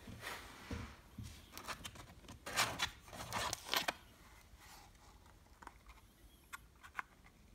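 Glitter-covered cardboard eyelash boxes scraping and rustling against each other as one is pulled out of a tightly packed stack, loudest in the middle, followed by a couple of light clicks near the end.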